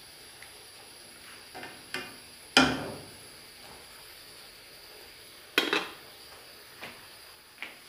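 Aluminium cooking pots clanking on a gas stove as chicken pieces are turned by hand: two sharp metal knocks with a short ring, one a few seconds after the other, and a few lighter taps in between.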